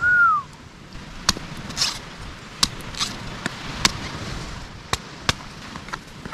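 A machete chopping into a green coconut, about eight sharp chops at irregular spacing. At the very start there is a short, loud falling whistle.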